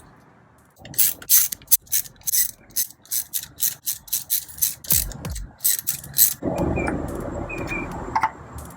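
Hand ratchet wrench clicking in quick strokes, about three a second, as the valve cover bolts on a 4G63 engine are backed out. A steady rushing noise takes over a little past six seconds in.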